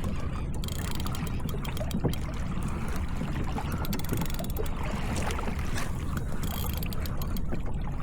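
Water rushing and slapping against a kayak hull as it is towed along by a hooked shark, with wind buffeting the microphone as a steady low rumble and scattered small splashes and ticks.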